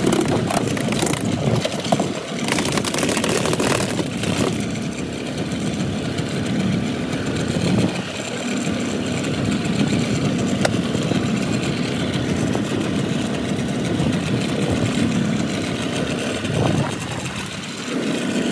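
A 48 SPL outboard motor running steadily at low speed, mixed with wind and sea noise.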